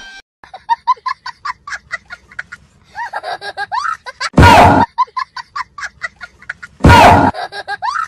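A child laughing hard in quick, high-pitched bursts, breaking twice into very loud shrieks of laughter, about halfway through and again near the end.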